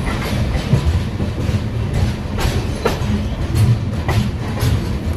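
Pushpak Express passenger train running along the track: a steady low rumble with short clacks of the wheels over rail joints at irregular intervals.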